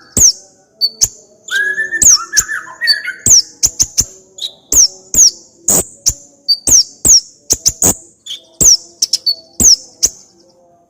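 Kolibri ninja sunbird singing its repertoire of fillers: a fast series of sharp, very high notes, each a quick downward sweep, about two a second, with a short lower warbling phrase about two seconds in.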